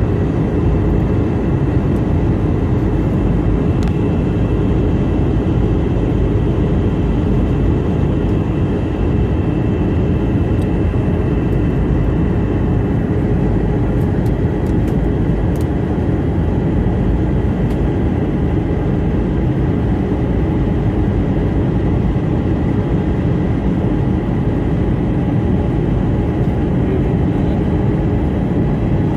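Airliner cabin noise in flight: a steady low rush of engines and airflow, with faint steady tones above it.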